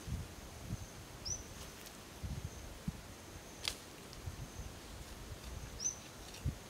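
Irregular dull thuds of a metal digging bar striking damp soil, with one sharp click midway. A thin steady high insect whine runs underneath, and two short high chirps come about a second in and near the end.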